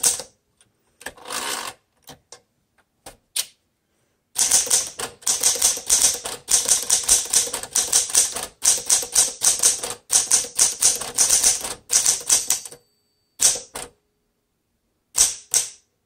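A 1960 Smith Corona Sterling all-manual typewriter being typed on. A short carriage return comes about a second in, then a few single key strikes. After that comes a long run of rapid, uneven keystrikes, several a second, for about eight seconds, and a few last strikes near the end.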